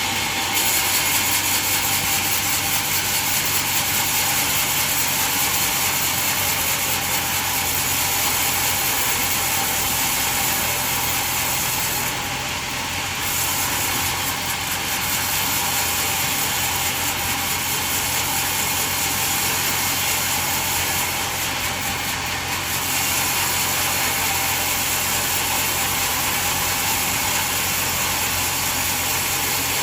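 Band sawmill running steadily: an even mechanical drone with a high hiss, easing slightly twice for about a second.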